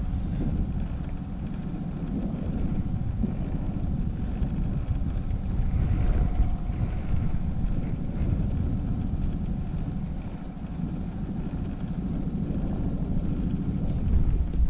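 Honda outboard motor running at trolling speed: a steady low drone with a faint constant hum above it.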